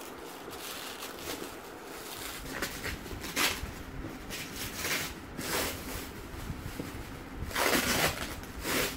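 Clear plastic wrapping crinkling and rustling as it is pulled off a camera box by hand, in irregular bursts, the longest and loudest a little before the end.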